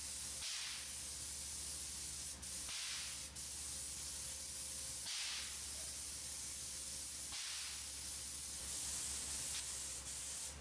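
Spray gun hissing steadily as it sprays a protective coating onto concrete, the hiss swelling about every two seconds.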